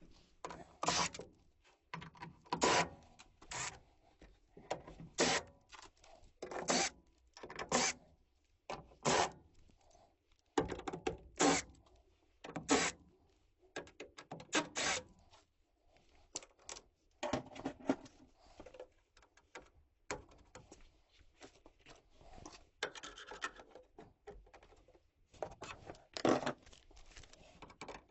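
Irregular rubbing strokes, one or two a second, each a short scratchy swish.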